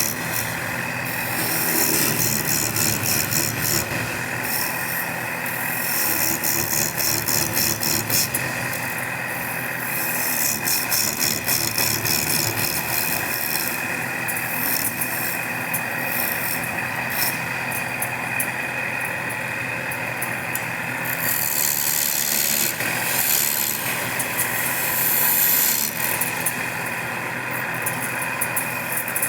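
A power tool's motor running steadily while cutting wood, with stretches of rough, rapid scraping as the cutter bites in and quieter spells between.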